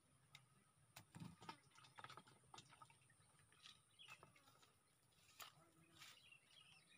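Faint, scattered clicks and rustles of a fishing pole and line being handled, with faint bird chirps near the end.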